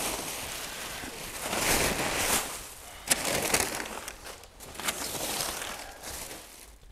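Crinkling and rustling of plastic air-pillow bubble wrap and crumpled brown packing paper being handled in a wooden shipping crate, coming and going unevenly with a sharp crackle about three seconds in.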